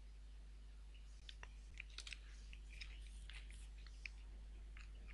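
Faint, irregular small clicks and ticks over a low steady electrical hum.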